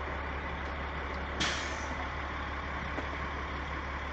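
Heavy truck idling with a steady low hum. About a second and a half in, a short hiss of air is vented from the truck's air system and fades within half a second.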